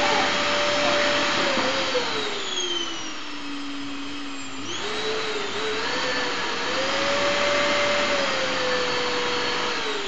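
Canister vacuum cleaner running, its motor whine sliding down in pitch for a few seconds as it slows, then jumping back up about halfway through and climbing again as it speeds up.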